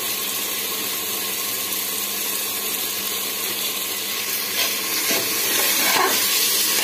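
Onion-tomato masala sizzling steadily as it fries in a pressure cooker. From about four and a half seconds in, a steel spatula stirs it, scraping against the metal pot.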